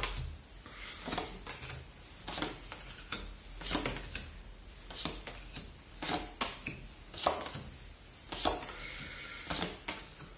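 Tarot cards dealt one at a time from a hand-held deck onto a tabletop, each card laid down with a short tap, about a dozen taps at roughly one a second.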